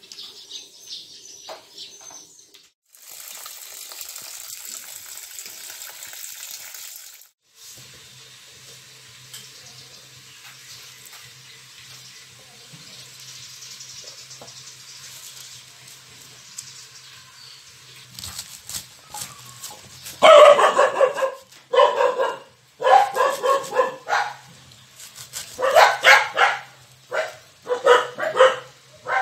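A dog barking repeatedly in short bursts through the last third, the loudest sound. Near the start there are a few seconds of steady hissing noise, and a faint low hum in the quieter middle stretch.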